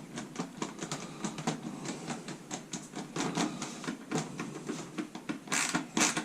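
Irregular small clicks and ticks, a few a second, of a hand screwdriver turning a screw into a plastic wing holder on a foam model plane, with a short scrape about five and a half seconds in.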